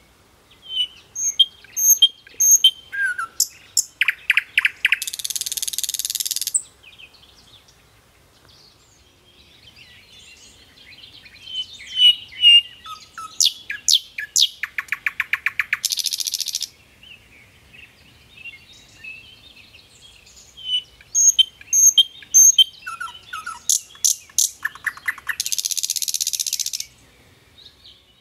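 A songbird singing the same song three times, about ten seconds apart: each song opens with a few high chirps, runs into a fast trill and ends in a dense, hissing buzz about a second and a half long.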